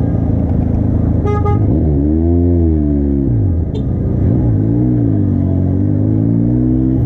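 Motorcycle engine running on the road, its pitch rising and falling twice as the throttle is opened and eased off. A short horn toot sounds about a second in.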